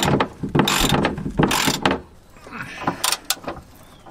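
Hand ratchet with a socket clicking as it undoes a fuel tank mounting bolt on a van. It comes in several quick bursts of ratcheting over the first two seconds, then a few softer clicks.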